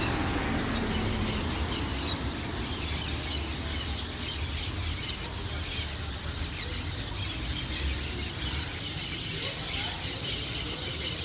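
Birds chirping and calling, many short high calls overlapping throughout, over a steady low rumble.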